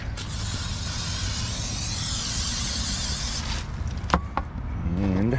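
Aerosol can of PAM cooking spray spraying into a skillet in one long, steady hiss of about three and a half seconds. Two sharp knocks follow about a second later.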